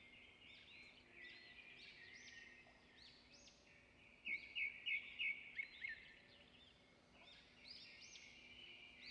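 Faint chirping of small birds, with a quick run of about six louder chirps between four and six seconds in.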